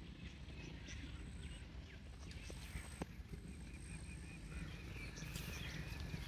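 Faint rural outdoor ambience: a steady low rumble with scattered small bird chirps, and a thin high whine that comes and goes in the first half. Near the end a run of quick, evenly repeated chirps.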